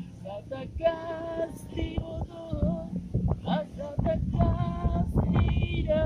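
A woman singing casually, holding long notes, with an acoustic guitar. Wind rumbles on the microphone, louder in the second half.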